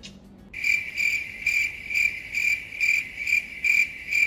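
Cricket chirping sound effect: a shrill trill pulsing a little over twice a second, starting sharply about half a second in and cutting off abruptly at the end.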